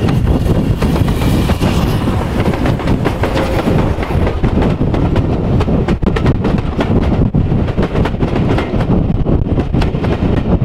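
LSWR T9 4-4-0 steam locomotive and its coaches passing close by: the engine goes by first, then many short clicks from about four seconds in as the carriage wheels run over the track. Strong wind buffets the microphone throughout.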